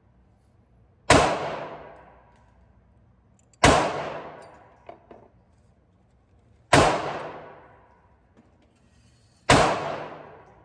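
Glock 23 pistol firing four single shots, spaced two and a half to three seconds apart, each crack trailing off in about a second of echo. A couple of faint ticks follow the second shot.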